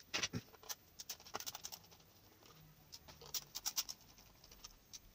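Faint clicks and ticks of a Torx T10 screwdriver working the screws of a plastic electric-blanket controller, with the plastic case being handled; a quick run of clicks about three and a half seconds in.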